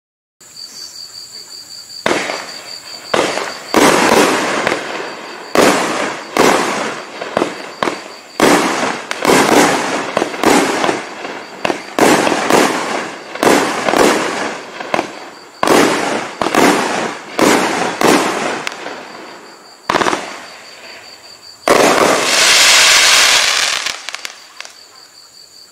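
Winda Fireworks Goldzilla Thrilla 500-gram, 20-shot cake firing: shots launch and burst in quick succession, roughly two a second, each a sharp bang with a short decay. Near the end a denser, sustained crackle lasts about two seconds, then fades.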